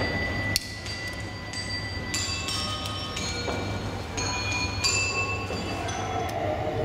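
Bell-like struck metal tones at several different pitches, ringing on one after another at about one every second, over a steady low hum.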